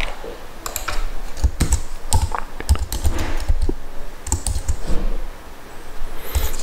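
Typing on a computer keyboard: a run of irregular key clicks, with a brief lull about five seconds in.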